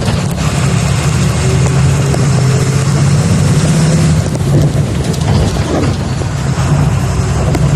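Volkswagen Volksbus 17.230 EOD bus engine running steadily: a low, even drone under a constant rushing hiss.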